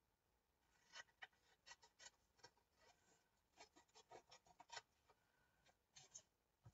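Faint, irregular snips of scissors cutting around a printed photo, a string of short cuts from about a second in.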